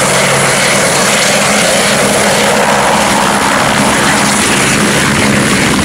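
Helicopter rotor and engine running steadily and loudly, with a constant low hum under a dense rushing noise.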